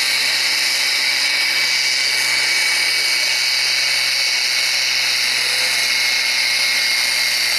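Farm-class pulling tractor's diesel engine running steadily under full load as it drags the weight sled, a constant loud drone with a thin high-pitched whine over it and no change in pitch.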